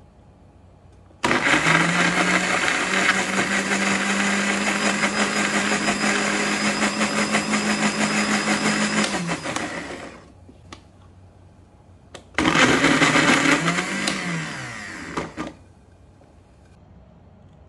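Electric countertop blender pureeing chopped garlic, onion and ginger: one long run of about eight seconds that winds down, then a second, shorter burst of about three seconds that ends with the motor spinning down in pitch.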